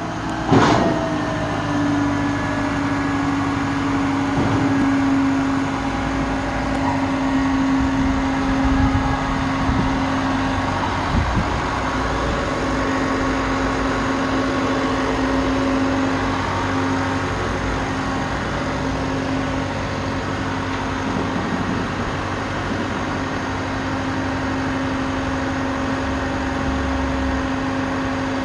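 Rollback tow truck's engine running steadily to drive the hydraulics, with a steady mechanical hum, as the flatbed tilts back and slides down to the ground. A sharp clunk with a falling tone about half a second in.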